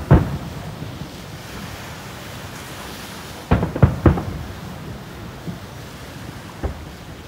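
Japanese aerial firework shells bursting overhead: one bang right at the start, a quick volley of about four about three and a half seconds in, and a lighter bang near the end, over a steady rushing background.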